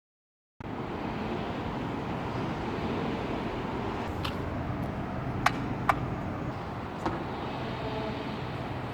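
Multi-storey car park ambience: a steady noise of traffic and vehicles, with several sharp clicks or knocks around the middle, the loudest two close together.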